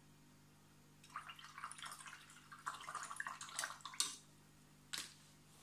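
Paintbrush swished and splashing in a jar of rinse water for about three seconds, followed by two sharp clicks about a second apart.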